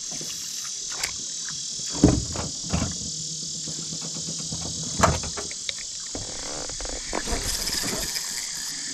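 Steady high-pitched chorus of insects, with a few sharp knocks, the loudest about two and five seconds in.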